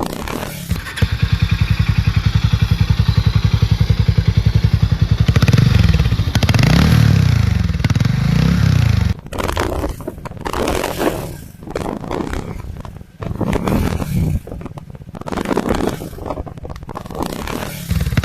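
Single-cylinder motorcycle engine idling with an even, regular beat, then blipped up and down several times from about five seconds in. After a sudden break near the middle, more throttle blips come in uneven surges with short drops between.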